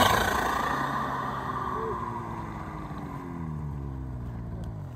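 Turbocharged snowmobile engine pulling away after passing close by. Its note falls steadily in pitch and fades, with a hiss of thrown snow at the start.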